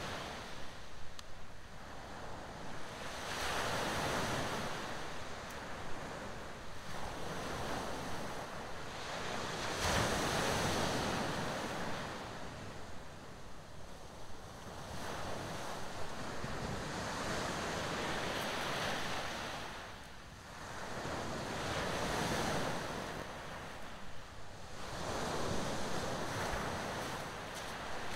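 Small waves breaking and washing up a shingle beach, swelling and fading in slow surges every few seconds.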